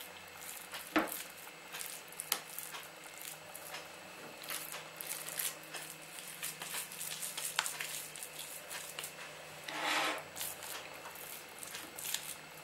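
Wet hands pinching off portions of raw chicken mince and setting them on a plate: soft, irregular squishing with small taps, and a louder wet squelch about ten seconds in.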